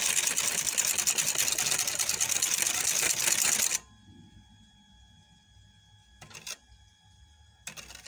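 Wire balloon whisk beating egg yolks and sugar in a bowl, a rapid steady clatter of the wires against the bowl that stops abruptly about four seconds in. Two brief faint sounds follow near the end.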